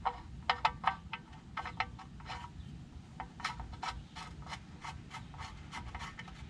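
Quick, light metallic clicks and ticks, several a second and more even in the second half, as the oil drain plug is refitted by hand and with tools.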